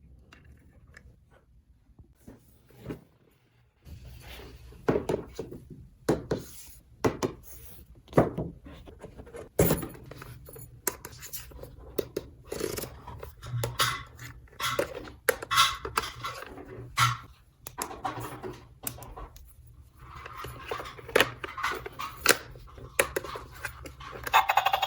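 Small plastic toy pieces being handled and set down: a long run of quick clicks, taps and knocks, with an occasional scrape.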